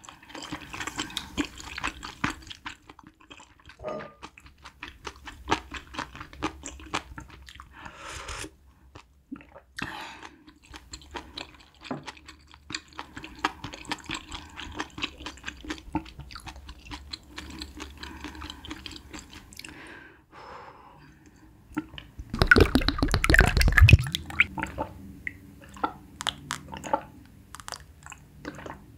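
Close-miked eating sounds from a wooden spoon and a bowl of spicy malatang broth: chewing and sipping, with many small clicks. About 22 seconds in come a second and a half of loud gulping from a glass of iced tea.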